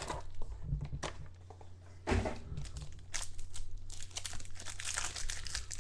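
Plastic wrapping on a trading-card box or pack crinkling and tearing as it is opened by hand, in bursts of crackles that thicken from about two seconds in. A steady low hum runs underneath.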